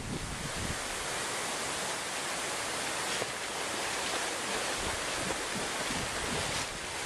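Pool water splashing and sloshing close to the microphone: a steady rushing hiss.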